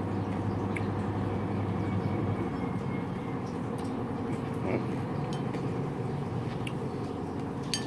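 A metal spoon clinking lightly a few times against a ceramic soup bowl, over a steady background rumble.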